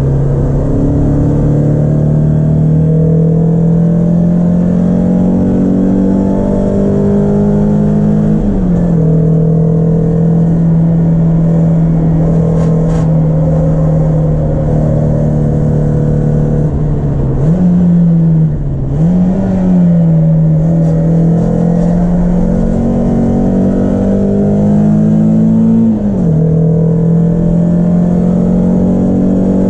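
Peugeot 306 S16's 2.0-litre 16-valve four-cylinder engine running hard at high revs. The engine note climbs slowly, then drops sharply at a gear change about eight seconds in and again near the end. Just past halfway the revs dip and rise quickly twice.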